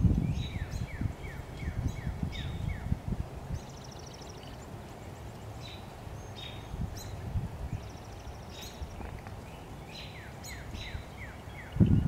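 Another bird sings two runs of quick down-slurred whistled notes, one at the start and one near the end. Under them are soft, muffled low knocks in the first few seconds and again midway, from a red-bellied woodpecker chipping out its nest hole in a tree trunk.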